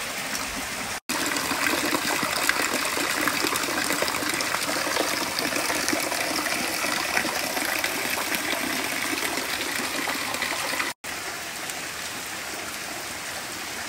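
Steady rain falling. It gets louder about a second in and drops back near the end.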